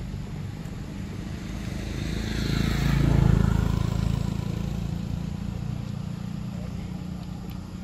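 A motor vehicle passing by, growing louder to its peak about three seconds in and then slowly fading, over a steady low hum.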